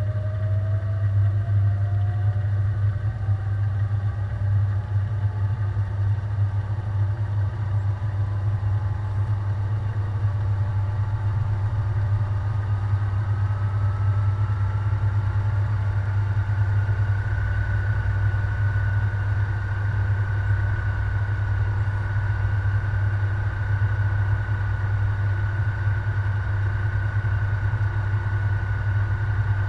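Washing machine spinning up in its spin cycle, heard from inside the machine: the motor's whine rises steadily in pitch for about the first seventeen seconds, then holds at full spin speed over a constant low drone.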